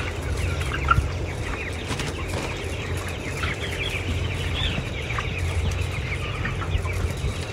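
A flock of broiler chickens clucking and chirping, many short calls overlapping, over a steady low hum.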